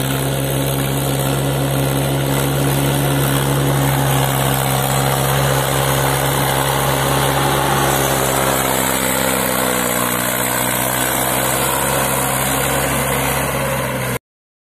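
Mahindra 575 DI tractor's four-cylinder diesel engine running steadily under load as it hauls a fully loaded soil trolley, its pitch wavering a little about two-thirds of the way through. The sound cuts off suddenly near the end.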